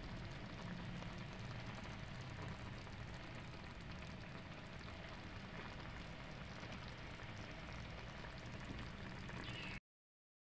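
Food sizzling and crackling steadily in a cooking pan. It cuts off abruptly near the end.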